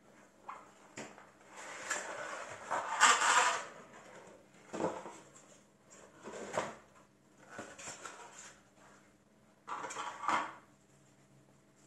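Cardboard scraping and sliding as the inner cardboard tray of a motherboard box is worked loose and lifted out, loudest a couple of seconds in, followed by several shorter scrapes and bumps of cardboard.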